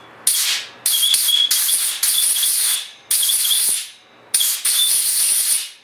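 Compressed-air blow gun blasting into a freshly tapped bolt hole to clear out the metal chips from the tapping. About six short blasts of hiss, each starting and stopping abruptly, most carrying a thin high whistle.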